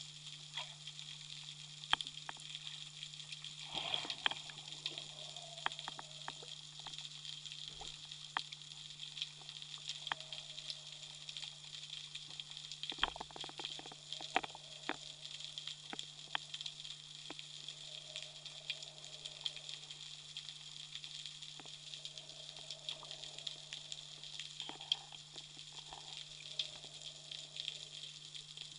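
Underwater ambience: a dense, steady crackle of tiny clicks with sharper ticks scattered through, over a steady low hum.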